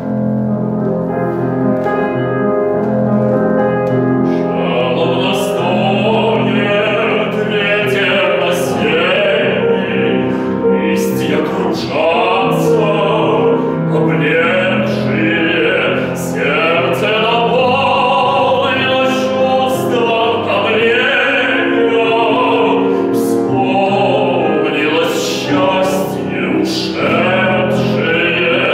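Piano introduction, then a male voice enters about four seconds in, singing a Russian romance in a classical, operatic manner with vibrato over the piano accompaniment.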